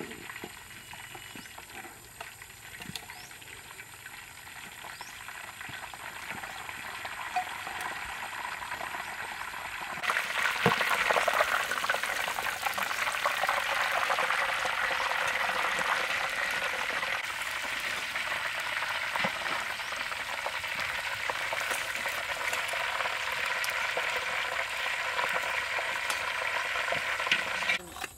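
Whole battered chickens deep-frying in hot oil in a large iron wok, the oil sizzling and bubbling. It is quieter at first with a few light clicks. About ten seconds in it swells into a loud, dense sizzle that cuts off near the end.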